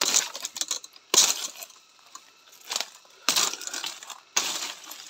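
Footsteps crunching through dry leaf litter and brushing against undergrowth, in irregular crackling bursts.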